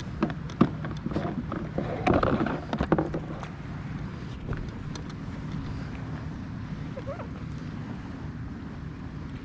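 A steady low engine hum from a motorboat, with a few sharp clicks and knocks and a louder rustle in the first three seconds.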